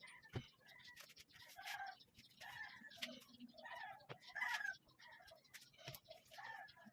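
Chickens clucking in short repeated calls, faint, with a few sharp knocks in between.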